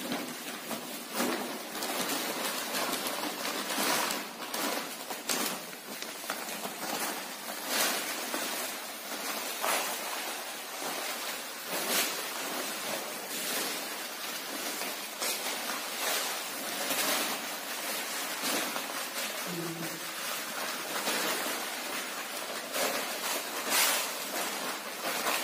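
Plastic bags crinkling as powder is shaken out of them onto a heap: repeated short crackles over a steady hiss.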